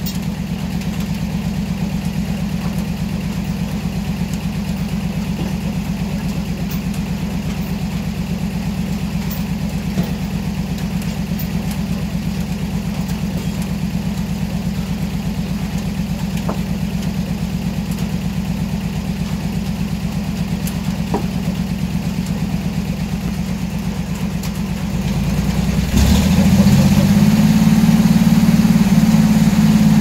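Engine driving an antique circular sawmill, running steadily with a rapid, even pulse while the blade spins free. About 25 seconds in it picks up, louder and higher, with a knock, as the carriage brings the log to the blade.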